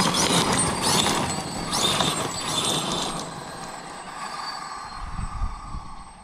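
Losi 5ive TE 3.0 electric 1/5-scale RC desert truck driving, its tyres and drivetrain making a noisy rush with a faint whine. It is loudest over the first three seconds, then fades as the truck moves away.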